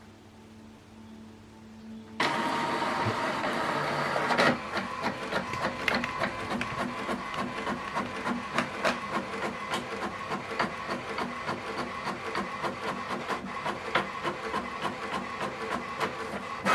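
HP Envy 6030e inkjet printer printing a double-sided job. About two seconds in, a steady mechanical whir starts suddenly. From about four and a half seconds it turns into a fast, uneven run of clicks and ticks that carries on to the end.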